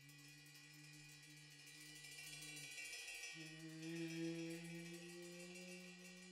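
Small Chinese opera cymbals ringing softly with a high shimmer, over a low held tone that breaks off about three seconds in and comes back slightly higher.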